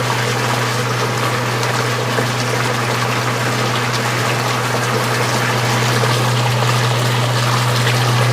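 Old washing machine running: a steady motor hum with water sloshing and trickling inside the tub.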